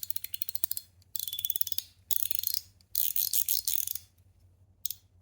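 PEI paragraph fidget slider (LINO EDC Limbo) being slid back and forth, its spring-loaded ball detents giving rapid runs of sharp clicks. There are four quick runs of ticks, then a lone click near the end.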